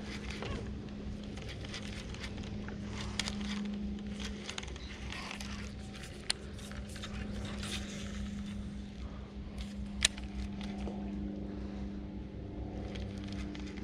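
Steady electric hum of a bow-mounted trolling motor, with a few sharp clicks from the baitcasting rod and reel as the fluke is cast and worked.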